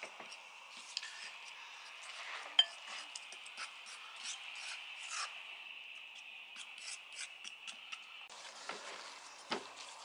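Metal fork stirring flour and water in a ceramic bowl, scraping and clicking against the bowl as it works them into a rough dough, with one sharp clink about two and a half seconds in. Near the end, gloved hands squeezing and kneading the dough in the bowl.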